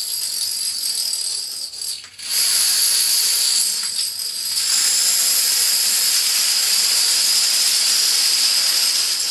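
Thousands of plastic dominoes toppling in a continuous chain reaction, a dense rattling clatter. It dips briefly about two seconds in, then picks up again louder and steady.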